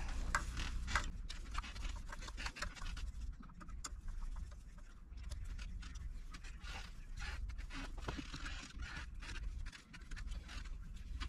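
Faint scraping and small scattered clicks of metal door-lock hardware being worked by hand with a Phillips screwdriver as the old deadbolt and strike plate are unscrewed and taken out.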